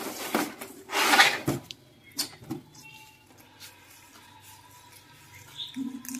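Leaves of a Sanh Nam Điền fig bonsai rustling as they are stripped off by hand, with one loud rustle about a second in and a few small snaps after it. A short low hum starts near the end.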